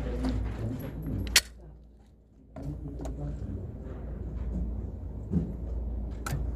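Low background murmur of voices with a few sharp cracks or clicks, the loudest about a second and a half in.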